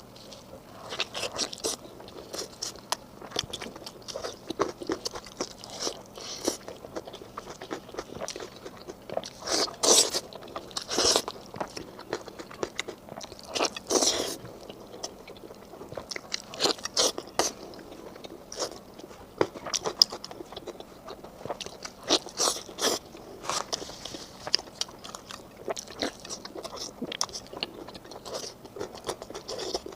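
Close-miked mouth sounds of a person biting and chewing meat: irregular wet clicks, crunches and smacks, with a few louder bites.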